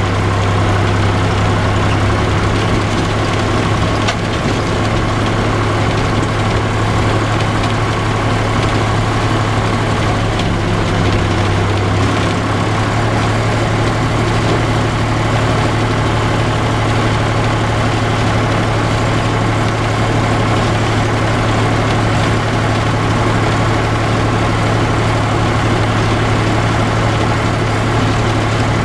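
John Deere 1030's three-cylinder diesel engine running steadily while the tractor moves along towing a baler; its pitch steps up slightly about twelve seconds in.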